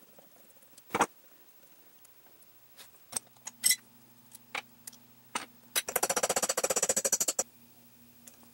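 Sharp metal clicks and clinks as parts of a small benchtop horizontal milling machine are handled while a handwheel is fitted onto the table leadscrew, then a rapid run of clicks lasting about a second and a half, the loudest part.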